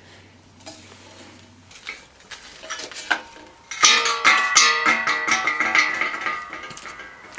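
A few faint clinks and knocks, then about four seconds in, music with plucked-guitar-like notes starts loud and fades down.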